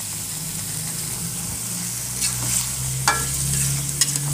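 Chicken gizzards in chilli balado paste sizzling in a wok as the sauce cooks down, stirred with a metal ladle that clicks sharply against the pan about three and four seconds in.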